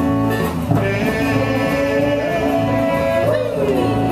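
Music for a dance performance, with a pulsing bass line under a long held melody note that wavers and bends about three seconds in.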